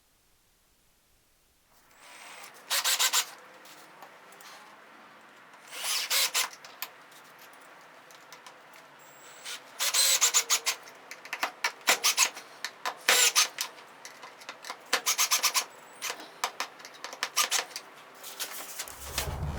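A rag being rubbed over the sanded metal washing-machine tub, wiping it down with paint thinner in a string of short, irregular strokes.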